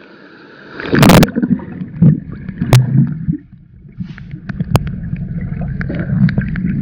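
Splashing as a camera goes under the water of a river pool, then a muffled underwater rumble and gurgling with scattered clicks. A second loud splash comes at the very end.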